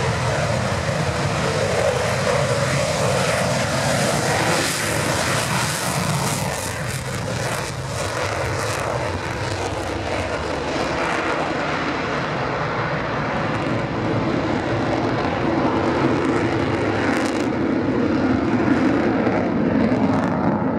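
Twin jet engines of an F/A-18 fighter taking off and climbing steeply away: a dense, loud jet roar with crackling from about four to ten seconds in.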